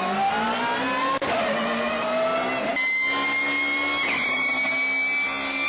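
Car engine accelerating hard, its pitch rising steadily, in short clips cut together. In the second half a high whine climbs slowly along with it.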